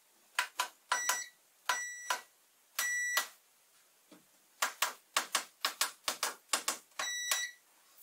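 Digital multimeter's continuity beeper giving short beeps, each sounding as a membrane keypad button closes the circuit, which shows that key's contact works. Quick sharp clicks run between the beeps, most densely in a run of rapid clicks in the middle.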